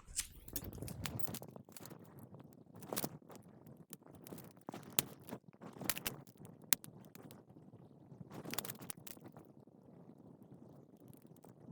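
Faint, irregular clicks, ticks and rustling from tools and small parts being handled on a power supply circuit board as the fuse, IC and resistor are taken off.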